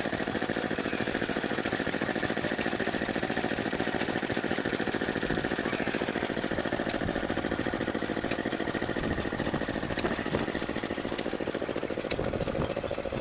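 Small vintage stationary engines running steadily with a fast, even beat, one driving a small water pump by a flat belt. A sharp click cuts through roughly once a second.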